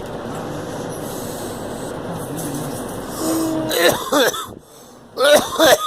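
A girl coughing and clearing her throat in harsh, voiced bursts from about four seconds in, the loudest near the end; she puts the coughing down to having swallowed something wrong. Before that, a steady rushing background noise.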